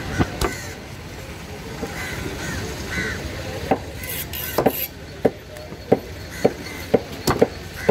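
Heavy cleaver chopping through pieces of fish onto a thick wooden table: two sharp strokes at the start, then after a pause a run of chops about every half second.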